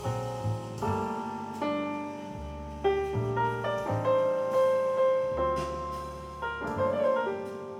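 Solo piano music played back through a single-ended 6L6 stereo tube amplifier: a run of struck notes with bass notes underneath, each note ringing and fading.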